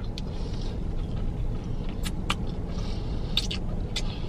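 Steady low rumble of a car idling, heard from inside the cabin, with a scattering of short sharp clicks from chewing food.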